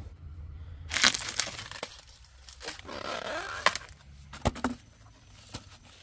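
Irregular sharp snaps and clicks mixed with short rustling, tearing noises, the loudest cluster about a second in and a sharp crack past the middle.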